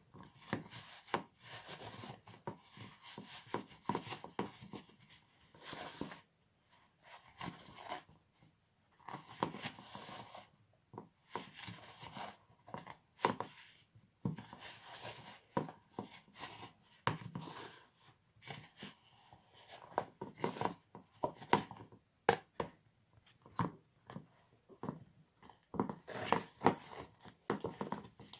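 A spoon stirring thickening slime in a plastic bowl, in irregular scraping, clicking strokes. The mix of white glue, cornstarch and borax-glycerin activator is being worked until it firms into slime.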